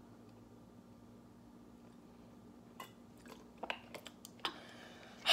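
A stretch of near quiet, then from about three seconds in a scattering of short clicks and crackles from a clear plastic drink bottle being lowered and handled.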